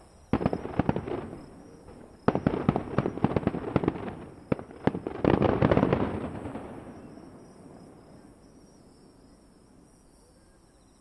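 Fireworks going off in three volleys of rapid bangs and crackles, starting about half a second, two seconds and five seconds in. The last volley is the loudest and dies away over a few seconds.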